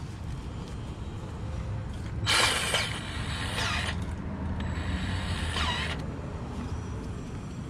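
Grease gun forcing grease into a forklift's steering-knuckle grease fitting: two noisy mechanical bursts of about a second and a half each, starting a couple of seconds in.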